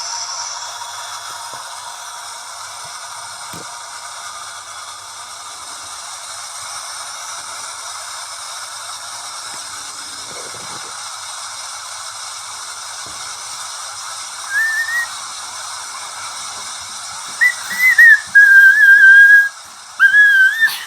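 A steady hiss, then short whistled notes that wobble in pitch. The whistling comes once briefly about two-thirds of the way in and then as several loud notes near the end.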